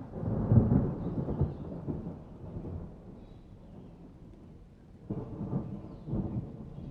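Thunder rumbling during a rainstorm: a loud low peal right at the start that fades over about three seconds, then a second rumble about five seconds in, over the steady hiss of rain.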